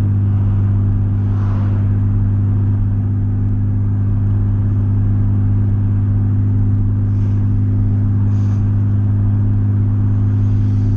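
Car engine and road noise heard from inside the cabin while driving: a steady low drone with no change in pitch.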